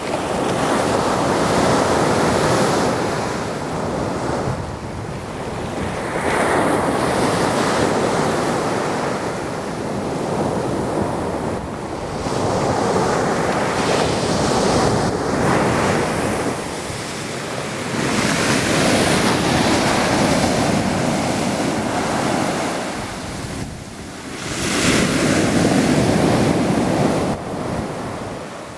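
Stormy sea: waves breaking and washing in five swelling surges about every five to six seconds, with wind buffeting the microphone.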